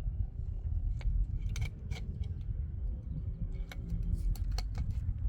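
Scattered light clicks and clinks of hard objects being handled, over a steady low rumble.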